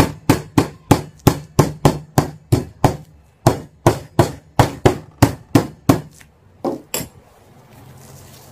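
Metal meat mallet pounding a raw pork chop on a chopping board to tenderize it, in quick, even blows of about three a second, which she calls a bit noisy. There is a short break about three seconds in, the pounding stops about six seconds in, and two last blows follow near seven seconds.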